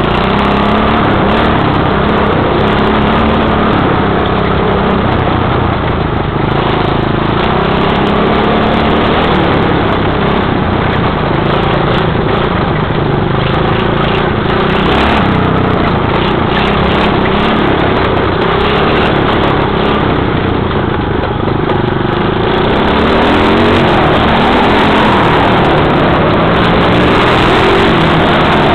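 Dirt bike's single-cylinder engine running under throttle as it is ridden, its pitch rising and falling with the revs, heard from on board.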